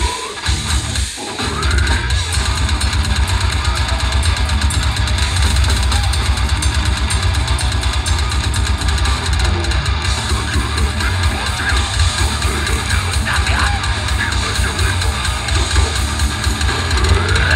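Live grindcore band playing at full volume: fast, dense drumming under heavily distorted guitar and bass, with vocals at times. There is a brief stop about a second in, then the full band carries on.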